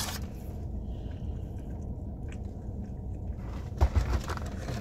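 A person chewing and biting into a sandwich, with a steady low rumble underneath and a few louder knocks near the end.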